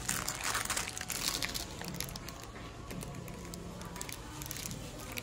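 Plastic bags of bento food picks crinkling and crackling in the hand, busiest in the first two seconds and sparser after.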